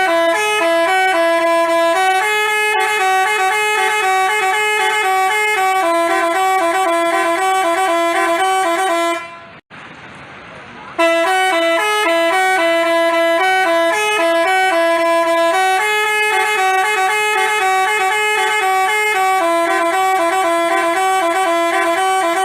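Basuri-type telolet multi-tone bus horn playing a stepping melody of held notes. It cuts off about nine seconds in and starts the tune again about a second and a half later.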